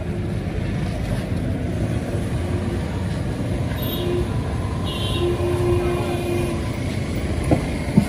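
Steady low rumble of street traffic.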